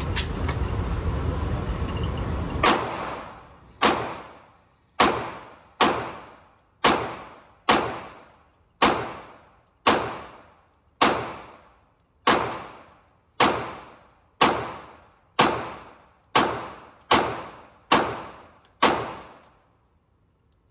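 Springfield Echelon full-size pistol fired seventeen times at a steady pace of about one shot a second, each report ringing off in the echo of an indoor range. A steady noise runs beneath the first few seconds and drops away after the first shot.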